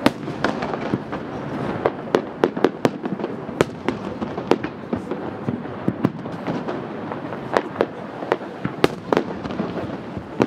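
Aerial firework shells bursting in quick, irregular succession: many sharp bangs, sometimes several within a second, over a constant background noise.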